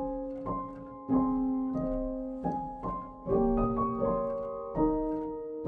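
Background piano music: a slow, gentle line of struck notes and chords, a new note about every half second to a second, each ringing on and fading.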